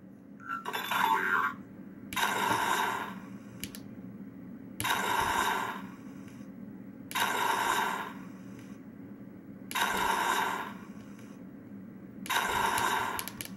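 Arduino-built Judge Dredd Lawgiver replica prop playing its flare firing sound effect each time the trigger button is pressed: five bursts of rushing noise, each about a second and a half long, coming roughly every two and a half seconds, after a shorter sound about half a second in.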